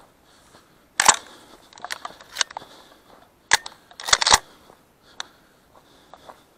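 Stoeger M3500 shotgun being handled: sharp mechanical clicks and clacks, a pair about a second in, another at about three and a half seconds and a quick cluster of three just after four seconds, with lighter ticks between.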